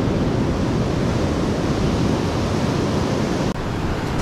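Steady wash of ocean surf, mixed with wind rumbling on the microphone.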